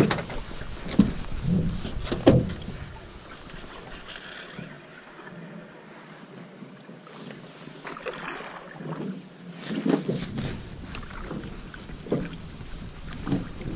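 Drift boat on a river: water splashing against the hull, with irregular knocks against the boat, several near the start and a louder cluster a little over eight seconds in.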